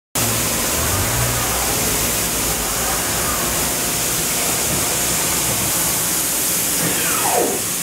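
Steady machinery hiss with a low hum under it, and a brief whine that falls in pitch about seven seconds in.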